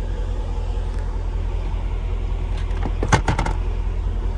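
SUV rear seat back being released and folded forward: a short clatter of latch clicks and a knock about three seconds in, over a steady low rumble.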